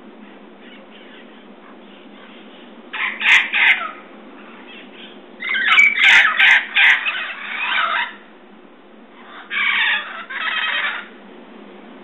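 Red-crowned parrots squawking loudly in three bouts of harsh calls: a short burst about three seconds in, a longer run of squawks from about five and a half to eight seconds, and another burst around ten seconds.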